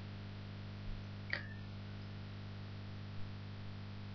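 Steady low electrical mains hum in the recording, with a faint short click about a second and a half in.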